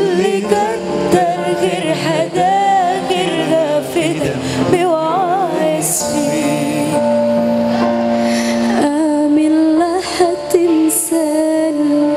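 A woman singing a slow song into a microphone, her melody wavering and ornamented with turns, over sustained backing music.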